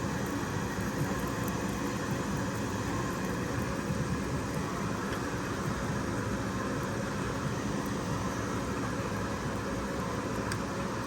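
Steady vehicle running noise: an even low rumble with a hiss over it, unchanging throughout.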